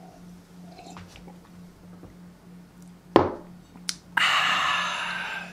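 A man gulping coffee from a mug, with soft swallowing sounds, then a thump about three seconds in. Near the end comes a loud, breathy "aah" of satisfaction after the drink.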